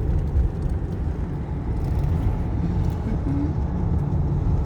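Steady low rumble of a 2014 Ford Econoline E-250 van driving along a road, engine and tyre noise heard from inside the cabin.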